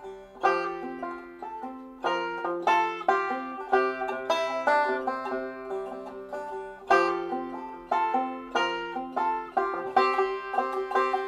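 Instrumental background music of plucked strings, a quick run of picked notes that each ring and fade.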